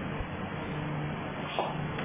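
A steady low hum under an even background hiss, with one short sharp sound about one and a half seconds in.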